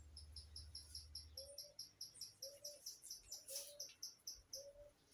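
Backyard birdsong: a small bird repeating a short high chip rapidly, about five notes a second, through most of the stretch. Under it, a lower short call repeats roughly once a second.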